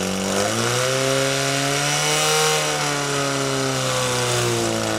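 Portable fire pump's small engine running at high revs: the pitch rises about half a second in, holds steady, then starts to drop near the end.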